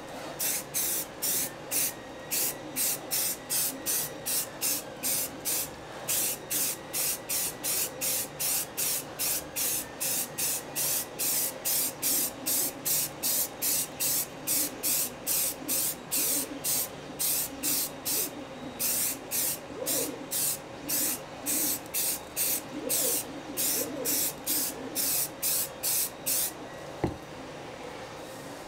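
Aerosol can of filler primer sprayed in short, rapid hissing bursts, about two or three a second, for nearly half a minute. A single sharp knock comes near the end.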